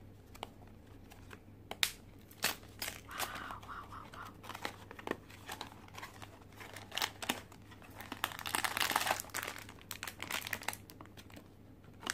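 Small cardboard blind box being opened and its crinkly plastic-wrapped contents handled: scattered clicks and rustles, then a longer run of crinkling about eight seconds in.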